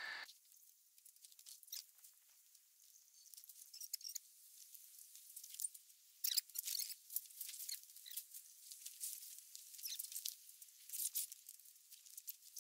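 Faint rustling and scraping of awning fabric being pulled along and fed into the RV's awning rail, in uneven short scratches that are loudest about six seconds in and again near the end.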